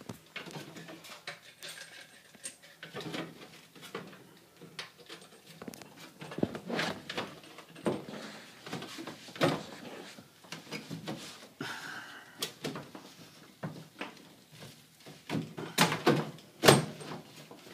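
Irregular knocks, clunks and rustles of hands working inside a cramped air handler cabinet, moving an insulated panel and copper refrigerant fittings against the sheet-metal casing and evaporator coil. The loudest knocks come in a cluster near the end.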